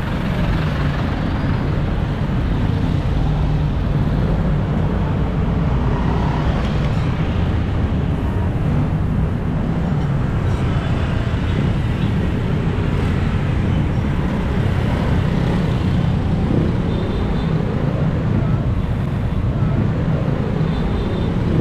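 Busy street traffic: motorcycle and car engines running close by, heard as a steady mix of engine and road noise without pauses.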